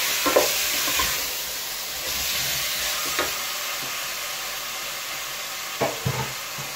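Raw chicken pieces sizzling steadily in hot oil and fried onions in a pot, just added to the pan. A wooden spoon stirs them, with a few short knocks and scrapes against the pot about a second in, around the middle and near the end.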